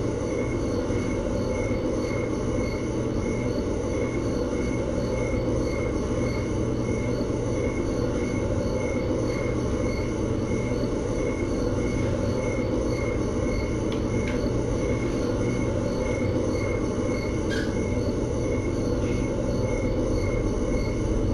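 A steady low rumbling drone with a faint high whine that pulses about twice a second, like a running machine. A couple of brief faint sounds come in over it in the second half.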